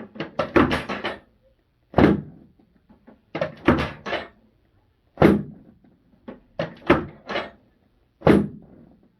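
Chiropractic drop table: the padded pelvic section drops with sharp clacks and thuds under the chiropractor's thrusts, several in a row, some single and some in quick groups, to correct rotation of the pelvis and tailbone.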